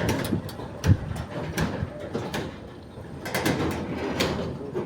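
Scattered knocks and clatter of work on a construction site, the loudest knock about a second in, with faint voices in the background.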